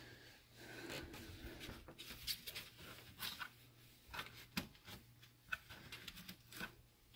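Gloved hand scraping dry grass and leaves out of a radiator's fins: faint, irregular rustling and scratching with scattered crackles and ticks.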